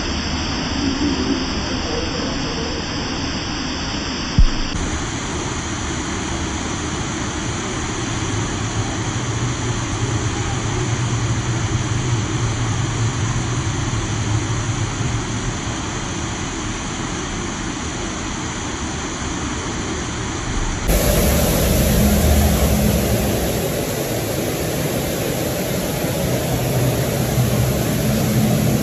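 Steady rush of water pouring down an artificial rockwork waterfall, with one sharp knock about four seconds in.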